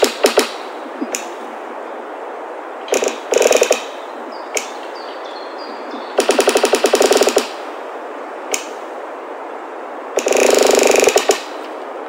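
A machine sounding in short bursts of rapid mechanical hammering, each lasting about a second, four times, with sharp single clicks in between over a steady background hiss.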